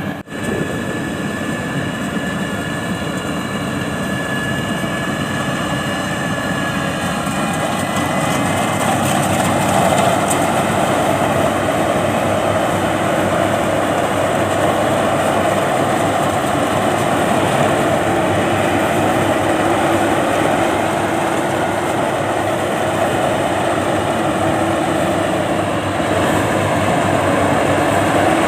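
Diesel engine of heavy farm machinery in a rice field running steadily under load, with a thin high whine over it at first; about eight seconds in the sound grows louder and fuller.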